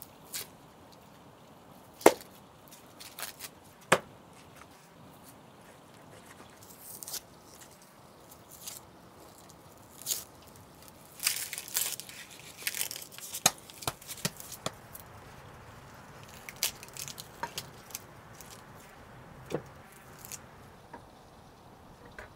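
A kitchen knife knocks on a wooden chopping block as raw beef is cut, in irregular single sharp knocks; the loudest comes about two seconds in. A stretch of scraping and rustling comes about eleven to thirteen seconds in.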